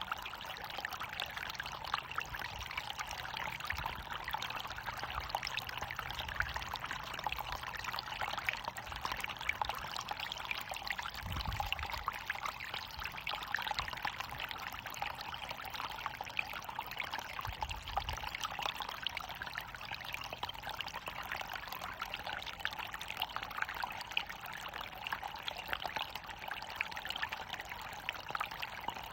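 Running water falling in a small waterfall, splashing in a steady, unbroken rush.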